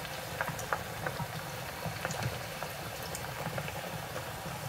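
Chicken wings deep-frying in a pot of hot oil: a steady bubbling sizzle with scattered small crackles and pops.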